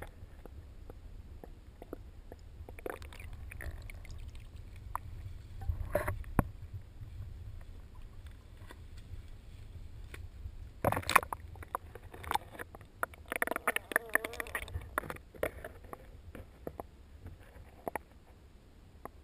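Muffled sound picked up through a GoPro's waterproof housing as it is moved through pond water on a pole: a low steady rumble with scattered knocks and clicks. About eleven seconds in comes a louder run of splashing and knocks as the camera goes back under the surface, with more knocks for a few seconds after.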